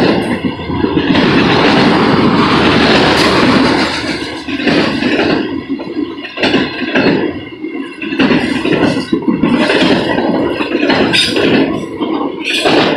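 Freight train of autorack cars rolling past close by: a loud, continuous rumble of wheels and car bodies, with repeated clacks as the wheels cross rail joints.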